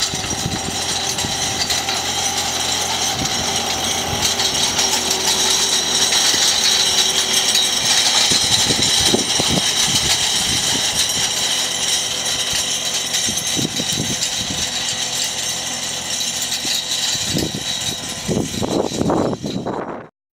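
Reform Mounty 100 slope tractor's diesel engine running steadily under load while it drags a meadow harrow across grass, with a constant hiss and rattle over the engine note. The sound cuts off abruptly near the end.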